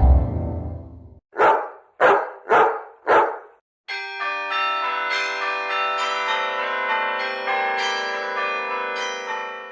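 A falling tone dies away, then a dog barks four times about half a second apart. Church bells then ring for the last six seconds, several bells struck in turn and left ringing over one another, like change ringing.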